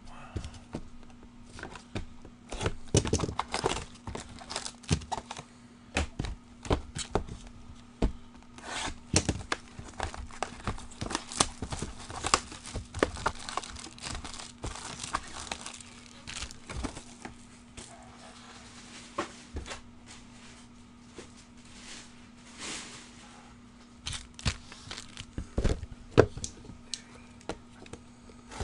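Trading card boxes and foil packs being torn open by hand: cardboard tearing and wrappers crinkling in irregular bursts of rustles and clicks, thinning out for a few seconds past the middle. A faint steady low hum runs underneath.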